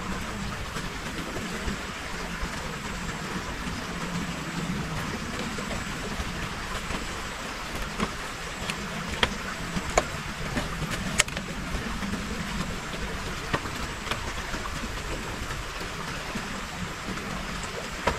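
Steady outdoor rushing noise, with a few sharp clicks and knocks in the middle of the stretch as rubber boots are pulled on and shifted on a bamboo platform.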